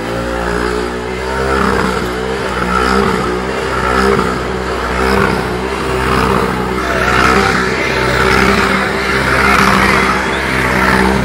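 Motorcycle engine held at high, nearly steady revs during a burnout, the rear tyre spinning on asphalt. Its rushing noise swells and fades about once a second.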